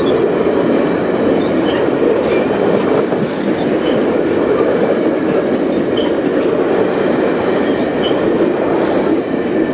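Stainless-steel passenger cars of VIA Rail's The Canadian rolling past at speed: a loud, steady rumble of steel wheels on the rails, with a faint high wheel squeal around the middle.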